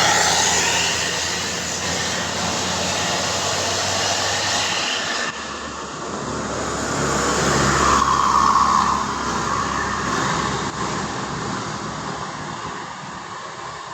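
A large bus passing, with engine and rushing road noise swelling and fading. The sound changes abruptly about five seconds in and rises again to a peak a few seconds later.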